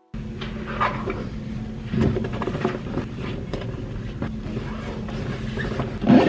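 Busy indoor room ambience: a steady low hum and rumble with scattered knocks and clatter, the loudest knock near the end.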